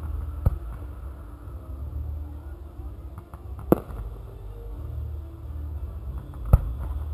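Fireworks display: three sharp bangs from fireworks shells, about three seconds apart, over a steady low rumble.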